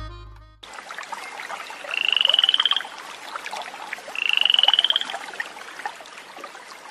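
Two trilled animal calls about two seconds apart, each a fast pulsing trill just under a second long that rises slightly in pitch, over a faint steady hiss. Music fades out just before them.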